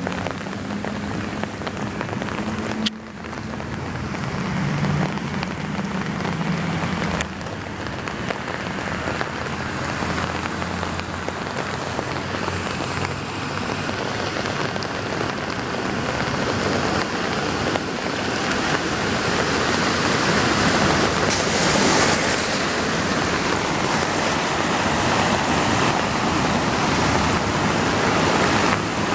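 Heavy rain pouring down on a flooded street, with a low engine hum in the first several seconds. The rush of rain and water grows louder in the second half.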